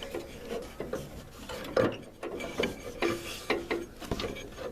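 Rubber drive belt being worked by hand onto the deck pulleys of a 1980s Sears Craftsman II riding mower: irregular rubbing and scraping with scattered clicks and a few short squeaks.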